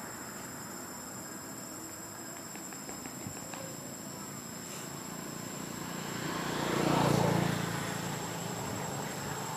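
Outdoor ambience with a steady high insect buzz; a low rumble swells up and fades away about seven seconds in.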